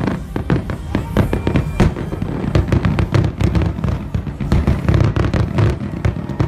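Fireworks display: aerial shells bursting in quick, overlapping succession, a dense run of bangs and pops over low booms.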